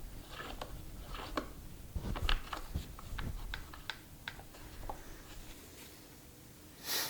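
Scattered light clicks and taps of hand tools and small metal parts being handled as a dirt bike's throttle assembly is taken off the handlebar, with a short rustle near the end.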